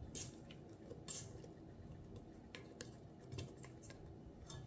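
Silicone spatula scraping soft bread dough off the sides of a stainless steel mixing bowl: faint, with a handful of brief scrapes and light taps.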